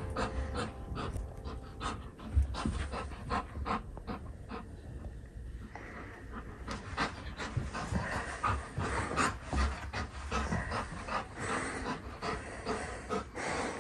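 Golden retriever panting during tug-of-war play with a rope toy.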